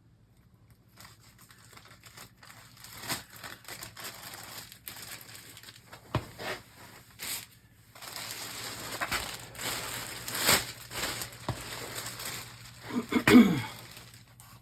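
Hands working with tools and materials: rustling and crinkling with scattered clicks and knocks. The loudest moment comes near the end, a clatter with a short squeak that drops in pitch.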